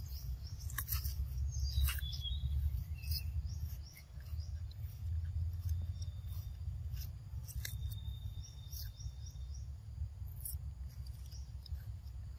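Long-tailed macaque crunching bites of raw cucumber, giving scattered crisp snaps over a steady low rumble. A few short, high chirps sound now and then.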